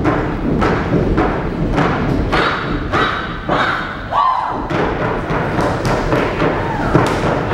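Step team stomping and striking canes on a stage floor in a cane step routine, a quick, uneven rhythm of sharp thuds and taps.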